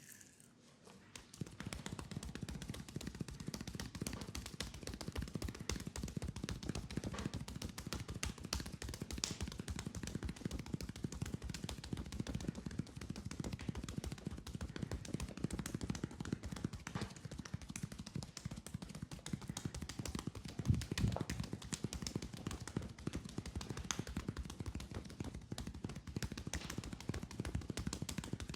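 Fast percussion massage on a leg: a dense, rapid run of hand strikes, chopping and slapping on skin, starting about a second in. One louder hit comes about three-quarters of the way through.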